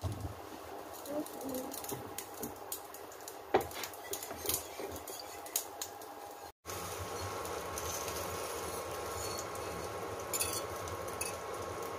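Wire whisk beating eggs in a bowl, with scattered light clinks of the whisk against the bowl, more frequent near the end. A steady faint hum sits under the second half.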